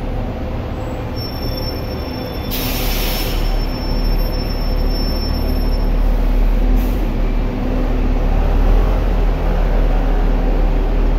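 City bus passing close by in street traffic: a low engine and road rumble with a steady hum, a thin high squeal from about one to six seconds in, and a short hiss of air about two and a half seconds in.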